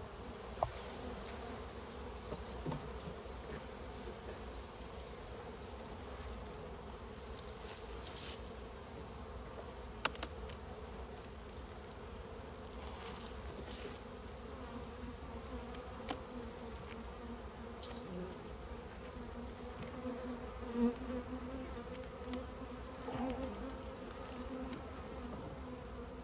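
Honey bees buzzing in a steady hum over an opened hive, with a few light clicks and knocks scattered through, the sharpest about ten seconds in.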